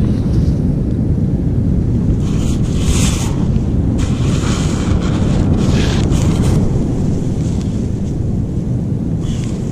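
Strong wind buffeting the microphone in a steady low rumble, with sea surf washing in as hissing surges a few times.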